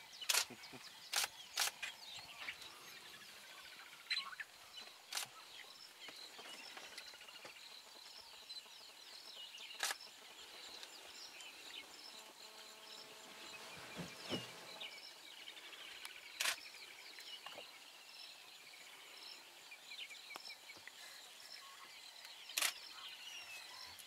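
Bush ambience: many birds chirping and calling steadily, with about eight sharp clicks scattered through it and a brief low swooping sound about two-thirds of the way in.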